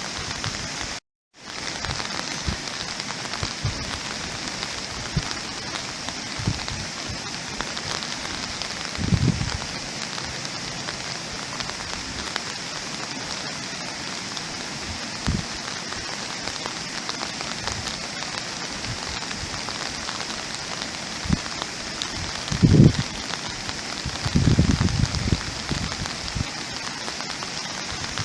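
Steady rain falling, a dense hiss with individual drops ticking, and a few low thuds around the middle and near the end. The sound cuts out completely for a moment about a second in.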